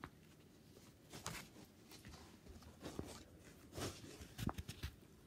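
Paper-and-plastic rustling and crinkling from a large diamond-painting canvas sheet as it is lifted and turned over by hand, in several short bursts, the louder ones in the second half.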